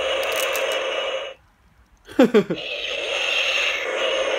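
Ultraman Cosmos Sound Flection figure's electronic flight sound effect from its built-in speaker: a steady rushing whoosh that breaks off a little after a second in, a short falling sound about two seconds in, then the whoosh again.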